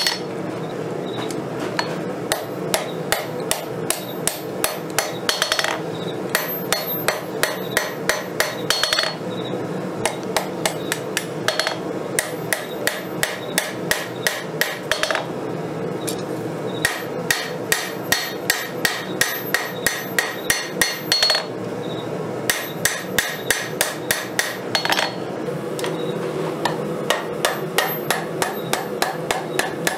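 Hammer blows ringing on an anvil as a blade of 5160 steel is forged, about three strikes a second in runs broken by short pauses, over a steady background noise.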